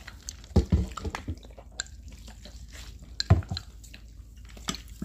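Chopsticks stirring and lifting soft potato ramen noodles in a bowl of soup, with dripping and squelching broth and a few short knocks of bowl and chopsticks, the loudest about half a second in and again about three seconds in.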